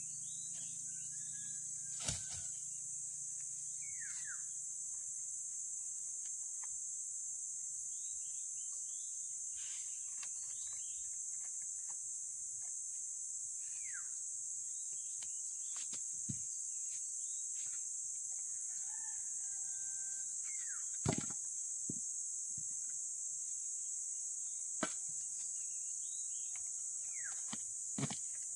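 A steady high-pitched drone of insects, with about six sharp knocks as a steel pry bar strikes and levers the wooden formwork off a freshly poured concrete column, and short falling bird chirps in between.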